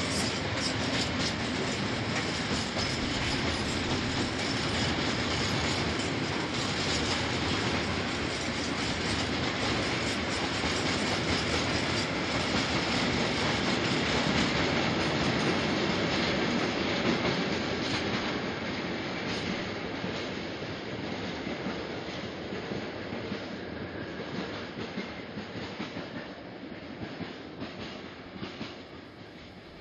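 Freight train of tank wagons rolling past, the wheels clattering over rail joints. The sound fades steadily through the second half as the last wagons pull away.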